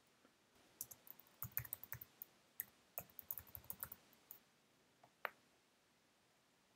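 Typing on a computer keyboard: a quick, uneven run of key clicks lasting about three and a half seconds, then a single keystroke about five seconds in.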